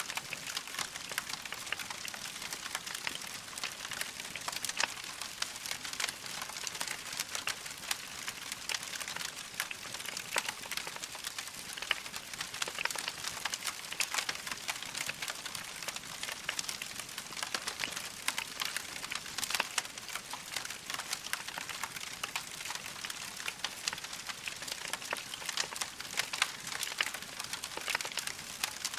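Wood fire crackling in a fireplace: a dense, unbroken stream of small pops and snaps over a steady hiss.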